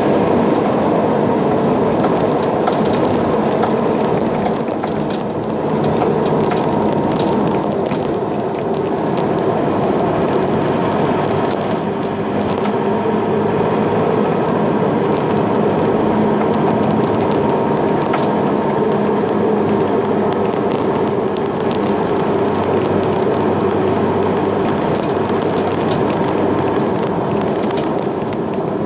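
Steady running noise of a vehicle under way, with a few faint steady tones and scattered light clicks.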